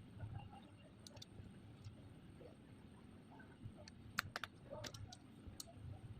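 Faint, scattered sharp clicks and ticks over a low hum, with a quick cluster of clicks about two-thirds of the way through.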